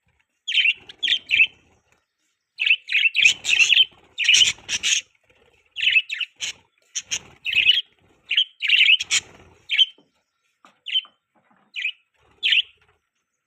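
Budgerigars chirping: quick short chirps in clusters of two to four, with brief pauses between the clusters.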